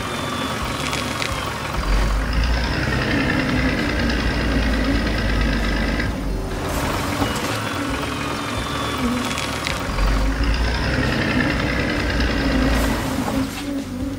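Tractor engine sound effect: a steady engine rumble that swells louder twice, from about two seconds in and again from about ten seconds in.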